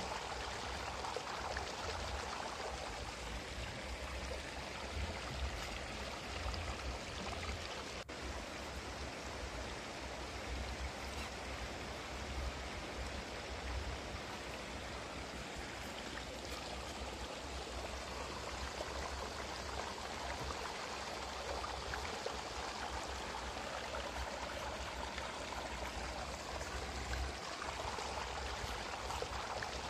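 Steady, even background hiss, with a single faint click about eight seconds in.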